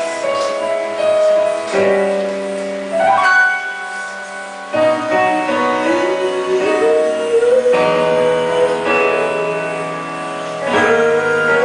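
Background music: piano with sustained chords changing about every three seconds, under a melody line that glides between notes.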